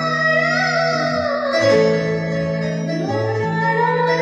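Amplified stage music led by an electronic keyboard: low held notes that change pitch every second or so, under a melody that slides smoothly up and down.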